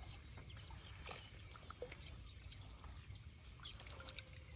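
Faint outdoor ambience with scattered short bird chirps over a low steady rumble.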